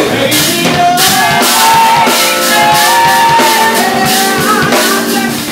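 Live soul song: a male lead singer holding long sung notes over keyboard and a drum kit with cymbal hits.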